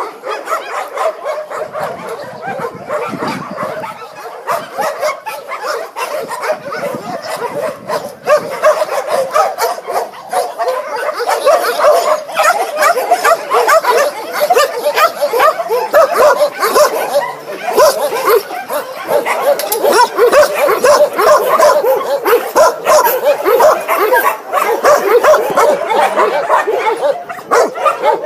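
Many dogs barking and yelping at once in a continuous, overlapping chorus, growing louder about ten seconds in.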